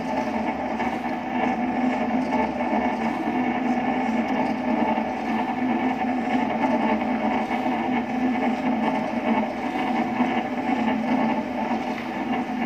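Detergent powder mixer machine running: its motor and drive give a steady hum with a few held tones, while the rotating paddle arms churn powder in the steel pan.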